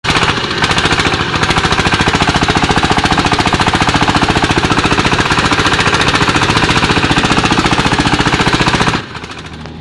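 Single-cylinder diesel engine of a công nông farm cart chugging loudly with rapid, even exhaust beats as it works hard under load. It cuts off abruptly about nine seconds in.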